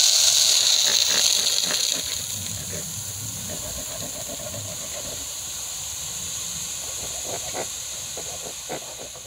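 Crushed gravel pouring out of a tipped steel wheelbarrow into a trench. It starts as a loud rushing hiss, eases after about two seconds into a softer steady pour with scattered clicks of stones, and trails off near the end.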